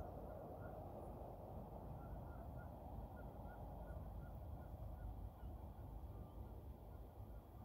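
A faint run of short, repeated bird calls, about three a second for a few seconds, over a low rumbling noise.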